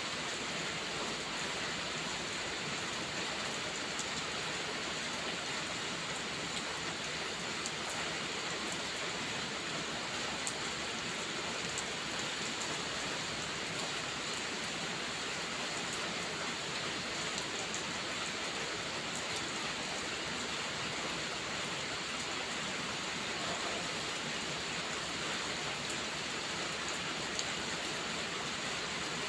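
Steady heavy rain, with scattered small sharp crackles of a wood fire in a fireplace.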